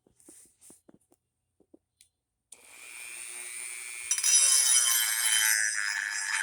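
Dremel rotary tool switched on about two and a half seconds in, its motor whine rising as it spins up, then grinding on a steel lawn mower blade edge, louder and harsher from about four seconds in. A few faint handling clicks come before it.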